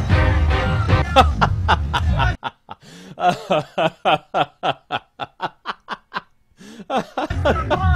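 Background music with a heavy bass cuts out about two seconds in, giving way to a snickering laugh sound effect: a quick run of short 'heh' pulses, about four a second. The laugh stops near the end and the music and crowd noise come back.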